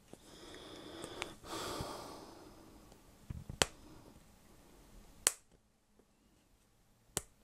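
Fingernails picking and clicking at the edge of a clear acrylic lamp panel, trying to lift its stubborn protective film: four sharp faint clicks a couple of seconds apart, with soft scraping and rustling early on.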